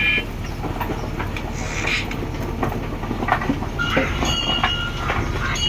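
JCB backhoe loader at work: its diesel engine running steadily under scattered metal clanks and knocks, with short high squeals about four seconds in.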